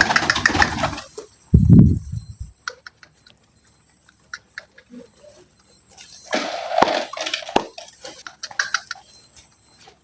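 Pigeons pecking at feed: a scatter of small clicks, between louder rustling bursts near the start and about six seconds in, with a low thump about two seconds in.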